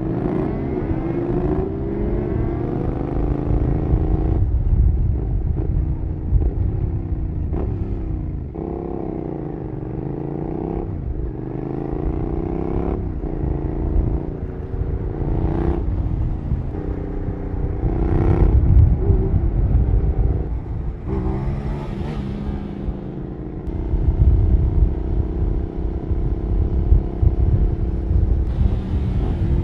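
Suzuki SV650 V-twin with an aftermarket Cobra SC3 exhaust, accelerating through the gears: the engine note rises and drops sharply at each shift, repeatedly, then holds steadier for a stretch near the end. Low wind rumble runs underneath.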